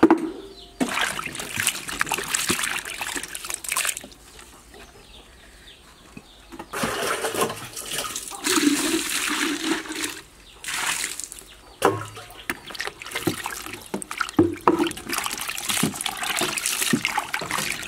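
Water splashing and swishing in a stainless steel sink as hands wash a batch of grubs, in three bouts of a few seconds each with quieter pauses between.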